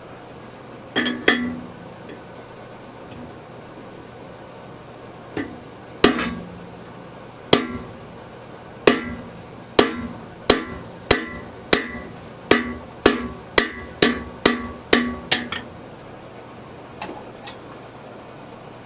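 Hand hammer striking hot iron on an anvil, forging the bowl of a small ladle. A few scattered blows come first, then a run of about a dozen evenly paced strikes that quicken to about two a second, each with a short metallic ring.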